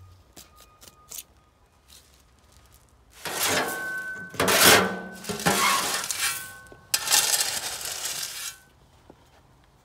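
Pea gravel being shovelled and spread with a metal shovel, the stones pouring out and rattling across the fabric in four loud rushes, starting about three seconds in and preceded by a few light clicks.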